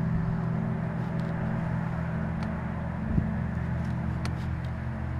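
Steady low hum made of several evenly spaced low tones over a faint rushing haze, which the recorder attributes to the ALCOA aluminium plant's machinery. A single sharp knock about three seconds in.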